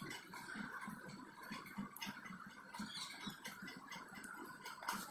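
Faint scratching and small irregular taps of a wire lead held and rubbed against component legs on a plastic breadboard, over a low steady background hiss.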